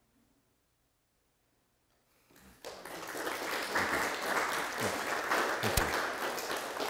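Near silence for about two seconds, then a small audience starts applauding and keeps clapping steadily.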